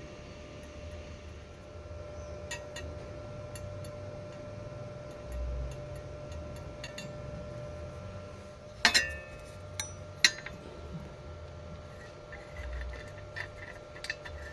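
Sharp metallic clinks with a brief ring: two loud ones about nine and ten seconds in, plus scattered lighter ticks, over a steady low hum.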